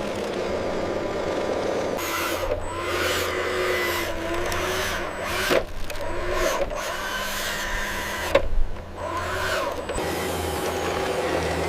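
Machinery running with a steady low hum and a whining motor tone that wavers up and down in pitch, with several abrupt changes in the sound.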